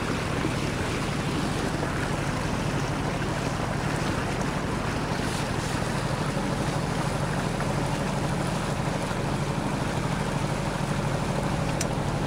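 Westerly Centaur yacht's inboard engine running steadily under way, with water rushing along the hull and wind on the microphone.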